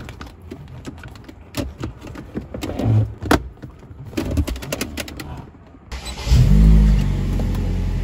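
Plastic centre-console trim clicking and knocking as it is pressed back into place around the gear shifter of a Perodua Myvi. About six seconds in, the car's engine starts, loud for a moment, then settles to a steady idle.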